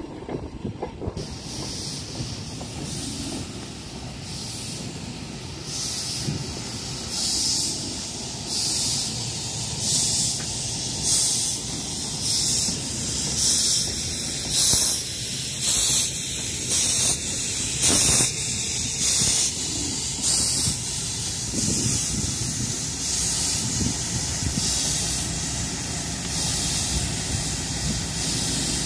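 Ptx48 narrow-gauge steam locomotive running, its exhaust chuffing in an even beat of about one chuff a second that slowly quickens, over a steady hiss of steam. The chuffs grow fainter near the end as the engine moves away.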